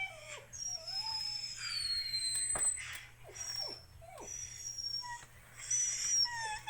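A dog whining and whimpering: long high-pitched gliding whines broken by several short cries that slide downward in pitch.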